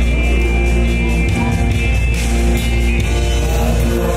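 A man singing into a microphone over loud backing music with a heavy bass.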